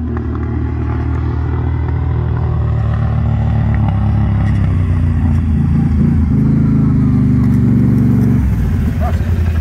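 Quad bike engine pulling hard up a sand dune, growing steadily louder as it approaches, then easing off about eight and a half seconds in.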